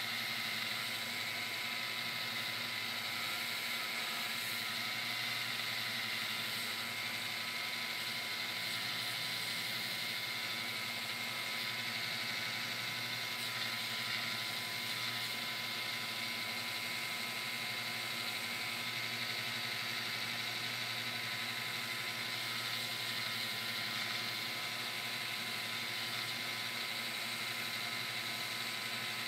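Genesis benchtop belt-and-disc sander running steadily while a wooden corbel is pressed against the moving sanding belt to shape its curved edge. The motor hum and belt noise stay even throughout.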